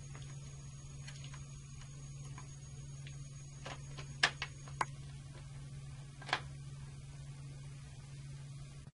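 A handful of sharp small clicks and taps, about five, bunched around the middle, as the circuit breaker's secondary mounting bracket is handled and set back in place, over a steady low hum.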